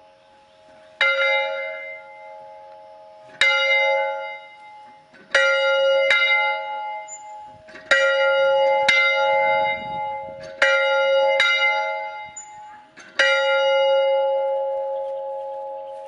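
Rope-swung church bell ringing, about nine uneven strokes with some coming in quick pairs, each ringing on into the next.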